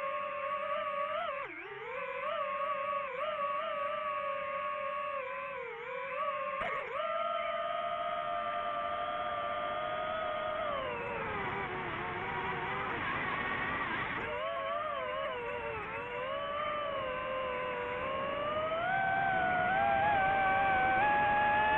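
FPV drone's electric motors whining, the pitch rising and falling with the throttle, with sharp dips about a second and a half in and again near seven seconds, and climbing higher near the end.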